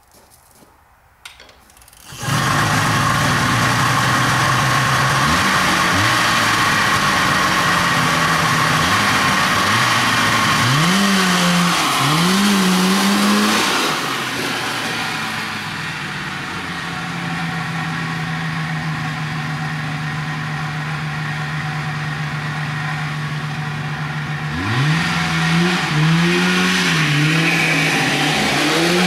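Rotax snowmobile engine swapped into a riding lawn mower starting about two seconds in, then running with repeated short revs as the mower pulls away. It runs steadily for a stretch and revs again in quick blips near the end.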